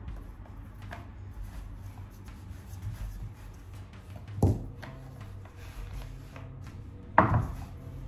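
Wooden rolling pin rolling piadina dough on a wooden board, a low steady rumble, with two sharp wooden knocks about four and a half and seven seconds in as the pin knocks against the board.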